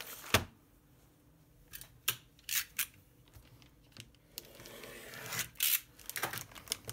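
A clear plastic bag being handled and pressed flat on a table: a sharp crack just after the start, then scattered short crinkles and a longer rustle building to a loud crackle a little past the five-second mark.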